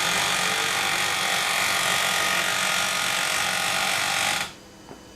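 Kyocera KM-2550 copier grinding loudly and steadily as its mechanism runs, the grinding caused by the waste toner container being missing. The grinding cuts off about four and a half seconds in, leaving a faint hum.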